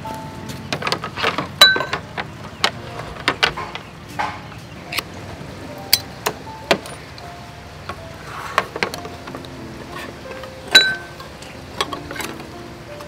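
Ring-pull tin cans being opened by hand: a run of sharp clicks, metal snaps and clinks as the tabs are lifted and the lids pop and tear away. The loudest snaps, with a brief metallic ring, come about a second and a half in and near the end. Soft background music plays under it.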